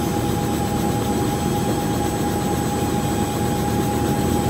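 Light helicopter running on the ground with its main rotor turning: a steady engine and rotor hum with a steady high whine over it.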